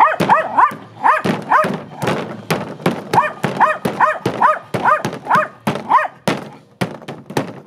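Ink-laden sticks beating on paper stretched over a wooden painting board: a fast run of sharp thuds. Over them come short, high-pitched yelps repeated about twice a second.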